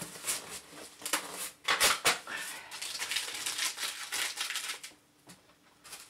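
Paper packing tape being peeled and torn off cardboard packaging, with the packaging rustling and scraping as it is handled: a run of irregular scratchy rips, loudest about two seconds in, dying away near the end.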